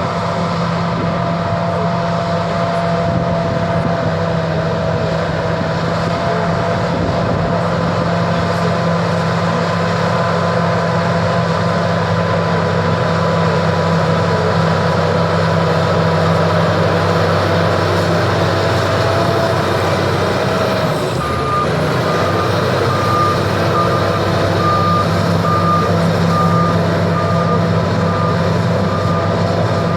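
SEM 816 bulldozer's diesel engine running steadily. About two-thirds of the way in, the engine note dips as the machine shifts into reverse, and its reversing alarm starts beeping about once a second.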